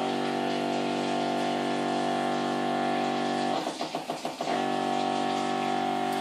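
Electric pump of a hand-held poultry injection gun running with a steady, pitched hum as liquid is forced into a plucked chicken carcass; it cuts off a little past halfway and starts again about a second later.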